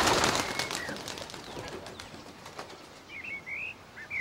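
Wings clattering as a flock of pigeons takes off, fading away over the first second or two. A few short, high chirps from other birds follow near the end.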